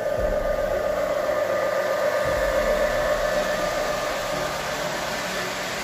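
G-scale model diesel locomotive running past close by, its electric motor and gearing giving off a steady, loud whine.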